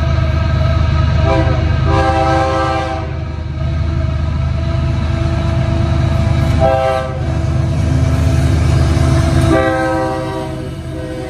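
BNSF diesel-electric freight locomotives working hard up a steep grade, their engines a steady deep rumble under heavy load. The chord horn sounds four times, short and long blasts, the longer ones about a second.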